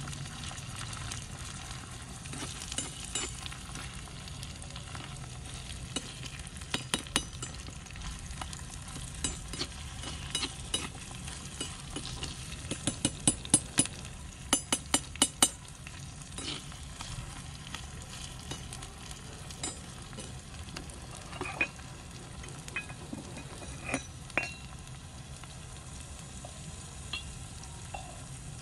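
Sliced onions and vegetables sizzling in a miniature iron wok while a small metal spoon stirs and scrapes them, with sharp clinks of metal on the wok. The clinks come in a quick run about halfway through, then only now and then.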